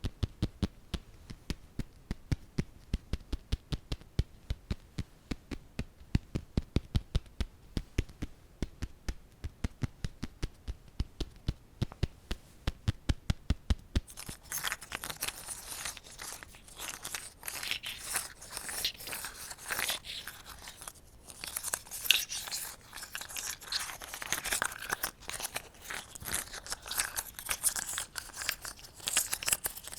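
Close-up ASMR tapping: steady, evenly spaced taps at about three a second. About halfway through it switches to a dense, crackly rustling, like something being crinkled or scratched close to the microphone.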